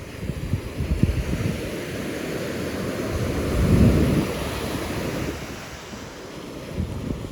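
Surf washing onto the beach, with wind buffeting the microphone in gusts; the surge swells louder about three and a half seconds in.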